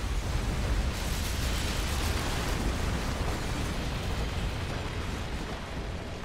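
Film sound effect of a planet exploding: a blast that hits suddenly, then a long, dense, rumbling explosion as the crust breaks apart and debris flies off, easing slightly near the end.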